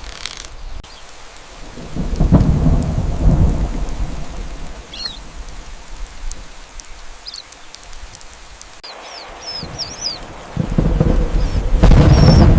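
Thunderstorm: steady rain with two rolls of thunder, one about two seconds in and a louder one near the end. A few short, high chirps come between them.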